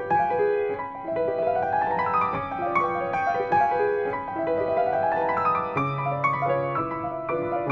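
Grand piano played solo, a classical piece with two quick rising runs of notes about two and five seconds in, and a held bass note entering near the end.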